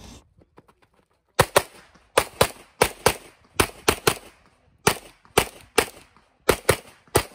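Limited-division competition pistol fired rapidly in close pairs of shots, the first about a second and a half in and some eight or nine pairs in all. These are double taps, two shots on each target while the shooter moves through a USPSA stage.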